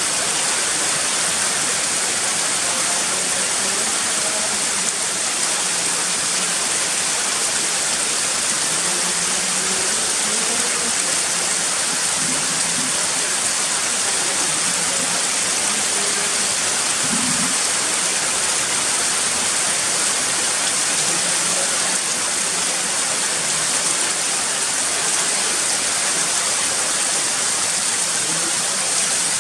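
Heavy rain falling steadily, an even hiss of rain that neither builds nor fades.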